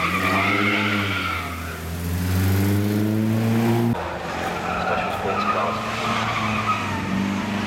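Engine of a supercharged 1931 vintage racing car accelerating hard, its note rising steadily, with a high whine above it. About four seconds in it cuts off suddenly, and another vintage racing car's engine is heard running at a steadier pitch.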